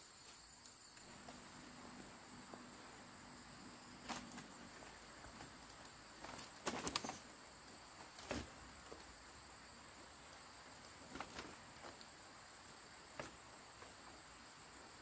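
Split bamboo slats knocking and clattering as they are handled and set into a bamboo fence: scattered light knocks, with a quick cluster about halfway through. Under them, a steady high trill of insects.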